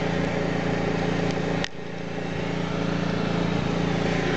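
Portable generator with a Vanguard engine running at a steady hum. There is one sharp click about a second and a half in.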